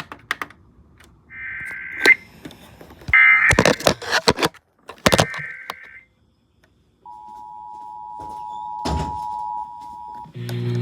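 Emergency Alert System header as received on broadcast radio: three short bursts of warbling digital data tones, with sharp clicks and crackles between them, then the steady two-tone EAS attention signal for about three seconds. A low steady hum comes in at the very end.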